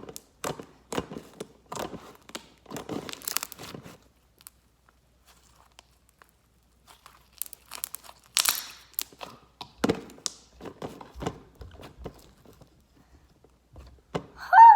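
Hands squishing and stretching slime, giving a run of short crackling, crinkly pops, pausing for a few seconds, then starting again. A brief high-pitched squeak comes right at the end, the loudest sound.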